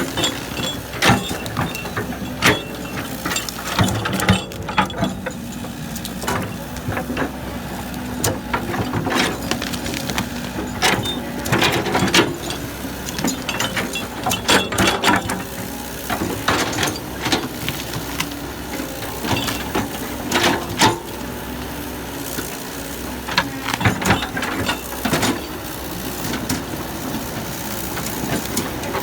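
Heavy earthmoving machinery at work: an engine running steadily under irregular clanks and knocks of metal and rock, many of them a few seconds apart.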